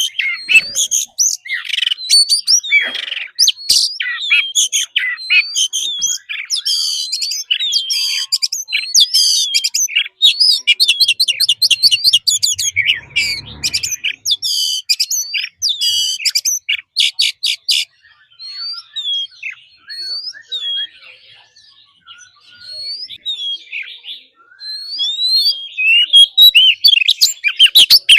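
Oriental magpie-robin singing: a fast, varied run of clear whistles, trills and harsh chattering notes. It thins to scattered softer notes for several seconds past the middle, then turns dense and loud again near the end.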